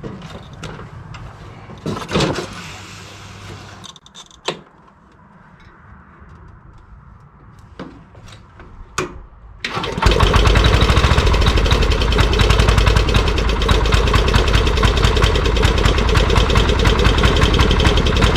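1975 MTD 990 garden tractor's engine catching on the first turn of the key about ten seconds in, then running steadily and loud. Before it starts there are a few scattered clicks and knocks.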